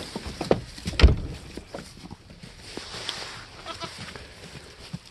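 Goats moving about on straw bedding, with rustling and scattered knocks, one loud thump about a second in, and a short faint goat bleat near the middle.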